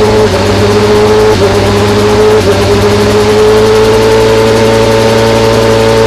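Formula 3000 single-seater's 3-litre V8 running hard under acceleration, heard onboard. It upshifts three times in quick succession in the first two and a half seconds, each shift a brief dip in the engine note, then pulls steadily in fifth gear with the pitch slowly rising.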